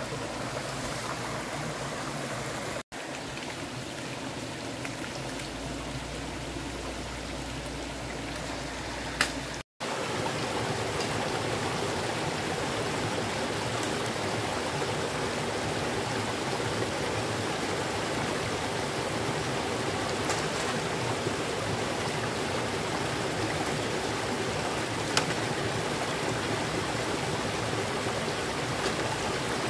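Small mountain stream spilling over rocks in a little waterfall: steady rushing water, a little louder after about ten seconds. It cuts out briefly twice, and there are a few faint sharp clicks.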